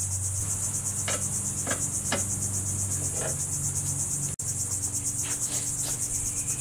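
Steady high-pitched trilling of insects with a fast, even pulsing, over a low steady hum. A few faint taps are heard.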